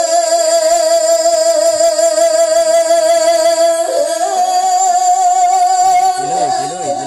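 A Buddhist monk's voice singing a verse sermon (thet klon) into a microphone, holding one long note with a quick vibrato, stepping up to a higher held note about four seconds in, then breaking into shorter wavering phrases and getting quieter near the end.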